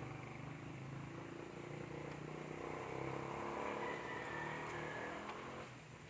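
A motor vehicle's engine running as it passes, growing louder to about four seconds in and then fading away.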